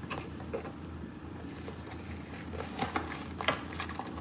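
A cardboard cake-mix box torn open by hand: scattered rustles, crinkles and small tearing clicks, over a low steady hum.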